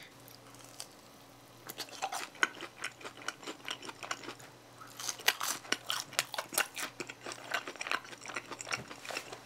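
Chewing a sweet potato cheese stick: a run of small, quick clicks and crunches starting about two seconds in.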